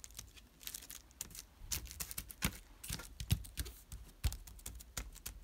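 Fingers pressing and patting a glued black card frame down onto a dried tissue-paper collage: irregular light taps and paper crinkles, a few of them landing as soft thuds on the table.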